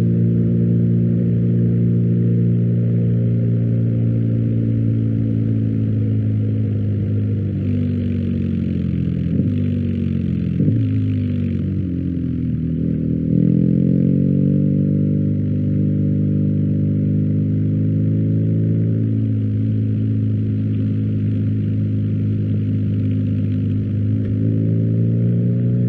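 BMW R1250GS boxer-twin engine running through an Akrapovic exhaust. The engine note drops for a few seconds about a third of the way in, climbs again, eases off once more past the middle and rises near the end, with one short click as it bottoms out.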